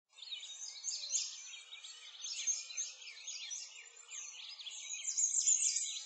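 A dense chorus of songbirds: many quick, overlapping chirps and trills rising and falling in pitch, with no pauses.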